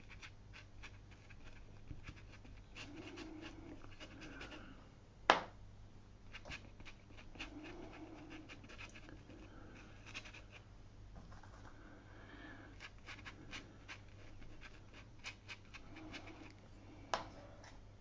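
Watercolour brush dabbing and stroking on paper: a string of faint light taps and scratches, with a sharper knock about five seconds in and another near the end.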